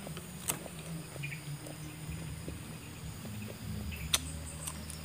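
A piece of raw green banana bitten with a sharp, crisp snap about four seconds in, with a few faint clicks from handling the fruit over a steady low hum.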